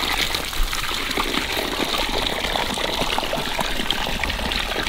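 Water running from a garden hose into a shallow muddy pool, a steady gushing trickle with many small splashes.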